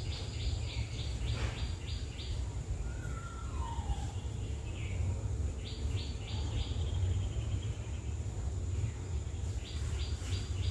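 A small bird chirping in quick runs of short high notes, near the start, about six seconds in and near the end, with a couple of short lower whistled calls between, over a steady low hum.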